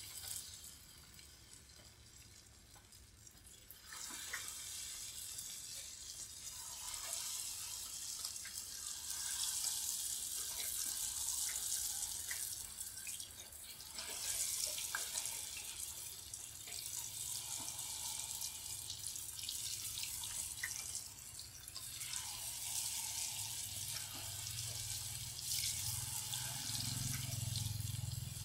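Battered breadfruit sticks deep-frying in hot oil: a sizzle that comes in about four seconds in and swells again several times as more pieces go into the pan, with a few light clicks.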